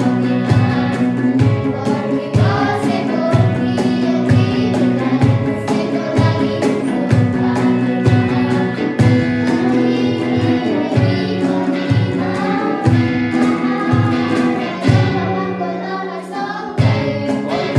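A group of girls singing together to a strummed guitar, over a steady low beat slapped on a cajón.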